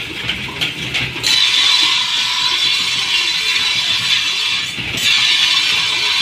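Steel sword blade ground against a motor-driven grinding wheel to put an edge on it: a steady, harsh grinding hiss starts about a second in, after a couple of metal clinks as the blade is taken up. It eases off briefly near the end and then resumes.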